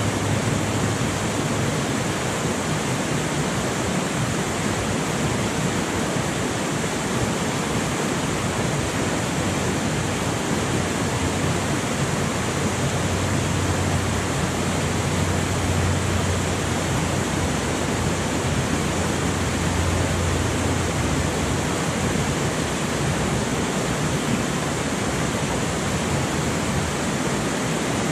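River rapids rushing over rock ledges, a loud, steady rush of water that does not change.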